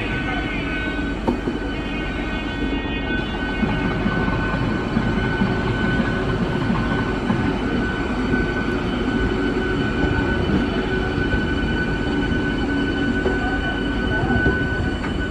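MEMU electric multiple unit train rolling slowly past the platform. Its wheels and running gear rumble steadily under a steady high whine.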